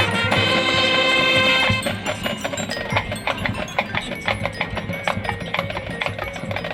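High school marching band playing: loud sustained chords for the first couple of seconds, then a quieter passage of quick struck notes from the band's mallet percussion, which ends right at the close.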